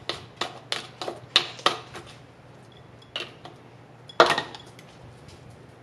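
Plastic canning funnel knocking and clattering against glass canning jar rims while diced onion is pushed through it: a quick run of light taps in the first two seconds, then a louder single knock about four seconds in.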